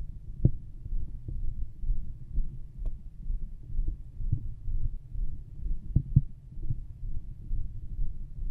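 Human heartbeat heard through a stethoscope pressed to the chest: a regular run of low thumps, about one a second, over a constant low rumble.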